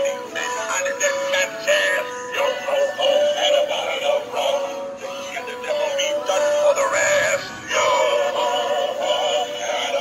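Animated Halloween pirate-puppy plush toy playing a song, a sung melody over music, from its built-in speaker as it moves.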